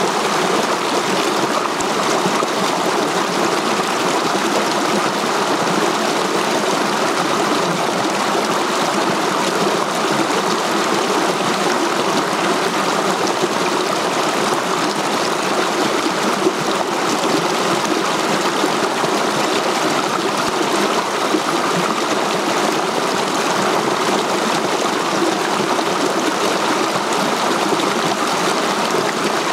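Mountain stream running over boulders in small cascades: a steady, even rush and splash of water.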